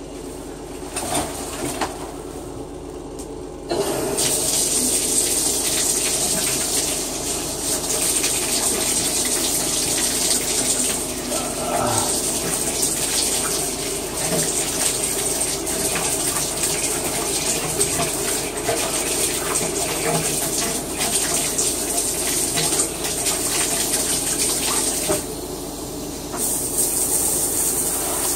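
Shower running: the water comes on with a sudden rush about four seconds in, then a steady hiss of spray, briefly quieter near the end.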